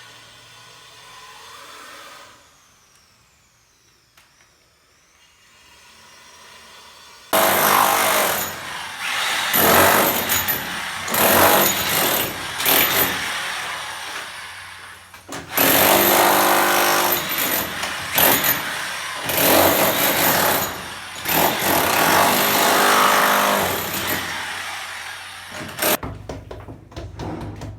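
Handheld power tool running in repeated loud bursts with short pauses, starting suddenly about seven seconds in after a quieter stretch.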